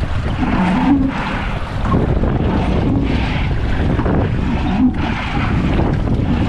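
Wind buffeting the microphone over the steady wash of choppy water around a small rowing boat on open lake water.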